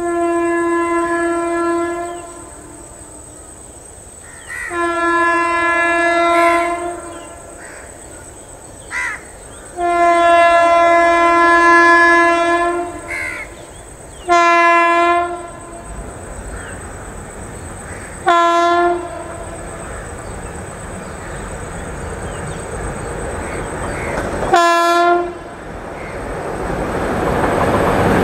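Indian Railways WAP7 electric locomotive horn sounding six times: three long blasts of one to three seconds, then three short blasts a few seconds apart. Near the end the rumble of the approaching train grows louder.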